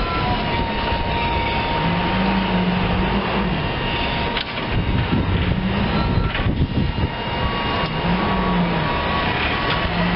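Kohler 25 HP gas engine of a Big Dog Black Jack zero-turn mower running steadily, its low note swelling and dropping back three times.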